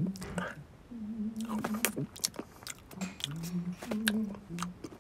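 A cartoon cat voiced by a person, eating: low, hummed 'mm' sounds of munching with short clicks and smacks of chewing in between.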